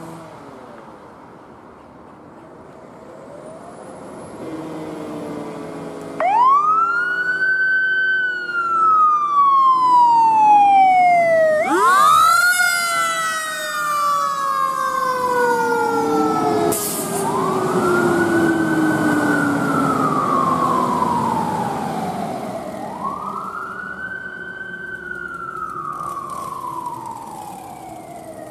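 Emergency vehicle siren wailing in repeated cycles, each rising quickly and then sliding slowly back down, about every five to six seconds. It comes in faintly, is loud from about six seconds in, and then eases off. Vehicle engine noise runs underneath.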